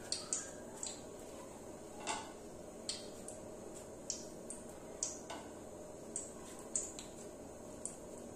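Hands rolling and pressing soft semolina dough balls: faint irregular ticks and clicks, about one or two a second, over a steady low hum.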